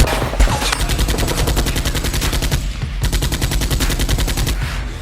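Rapid automatic gunfire, a dubbed machine-gun sound effect standing in for blaster fire, with many shots a second. It breaks off briefly a little after halfway, then resumes.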